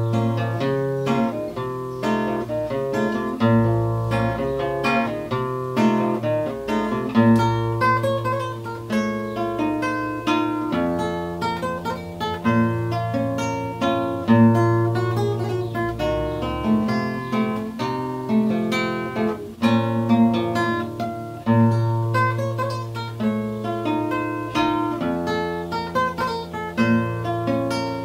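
Nylon-string classical guitar played fingerstyle: a melody of plucked notes over a bass line that changes every second or two.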